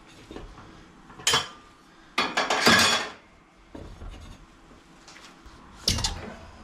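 Metal tools and steel parts clanking and scraping on a tire changer: a sharp clank about a second in, a rattling scrape a little later, and another clank near the end.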